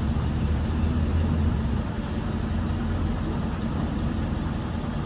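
Pontiac G8's engine idling steadily on fresh spark plugs and plug wires; the sound cuts off abruptly at the end.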